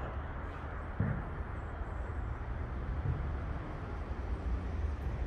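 City street ambience: a steady low rumble of distant traffic, with a single dull knock about a second in.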